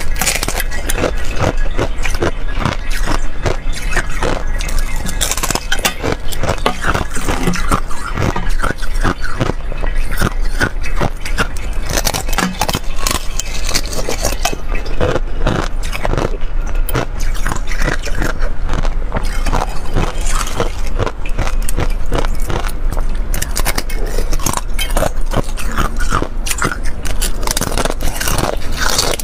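Thin sheets of clear ice being bitten and crunched, close to a clip-on microphone: a dense, unbroken run of sharp cracks and crackles.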